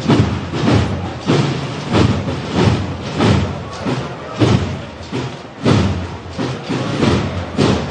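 Procession band music carried by heavy drum beats, roughly one beat every second or less.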